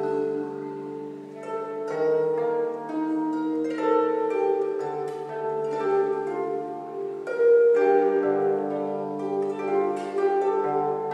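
Solo harp, plucked: a flowing melody with ringing notes over sustained bass notes, with a stronger attack about seven and a half seconds in.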